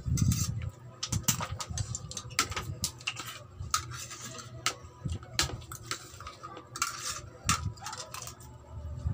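Spoon and fork clinking and scraping against a plate and a glass bowl while eating, as irregular, quick little clicks.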